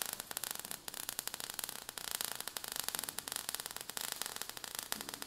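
Crackling spark sound effect: a dense, fast stream of small crackles and pops over a hiss.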